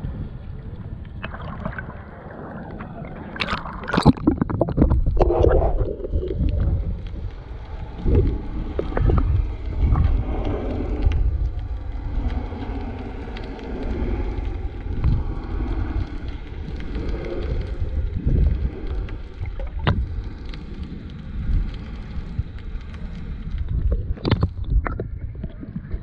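Water moving around an action camera held underwater: a low, muffled rumble and gurgling, broken by a few sharp clicks and splashes, the loudest about four seconds in.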